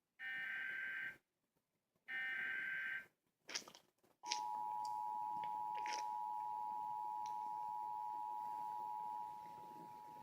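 Emergency Alert System signal for a flash flood warning: two short bursts of the SAME digital header, a harsh buzzing data screech about a second long each, then a few clicks and the steady two-tone attention signal, which starts about four seconds in and drops in level near the end.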